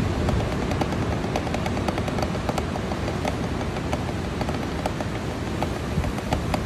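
Wooden drumsticks striking a rubber practice pad in quick, uneven strokes of a rudiment and improvisation warm-up, over a steady low rumble of surf and wind.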